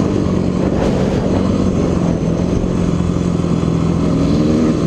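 Dirt bike engine running steadily while riding along a dirt road, with wind rushing over the microphone; the engine note climbs a little near the end.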